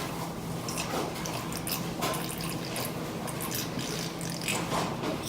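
Wet chewing and lip-smacking close to the microphone, a scatter of soft moist clicks.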